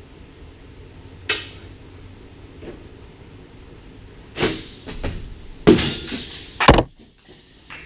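Metal clanking and clattering from work on a motorcycle wheel at a tire changing machine. There is a sharp clink about a second in, then two busy, rattling stretches in the second half, the last ending in a heavy knock.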